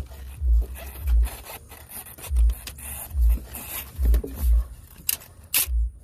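Socket on a universal-joint extension scraping and rubbing against metal as it is worked onto a coil-pack bolt, with two sharp clicks about five seconds in. Repeated dull low thumps, roughly one every half second to second, sit under it and are the loudest thing.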